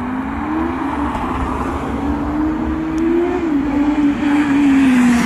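Motorcycle engine running under throttle, its note climbing slowly for about three seconds, then dropping near the end.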